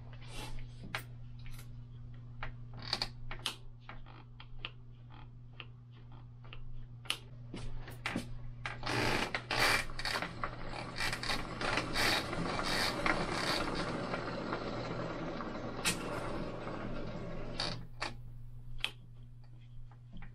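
Hand work on a bicycle: scattered sharp clicks and knocks, then from about nine seconds in a long, continuous ratcheting rasp lasting roughly nine seconds, over a steady low hum.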